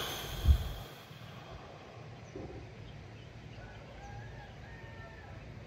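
A single dull thump about half a second in, then a faint steady background with a few faint bird chirps later on.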